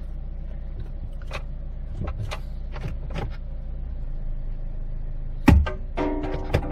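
Jeep Compass engine idling with a steady low hum, with a few light clicks in the first half. About five and a half seconds in comes one sharp, loud thump, followed by a short pitched tone.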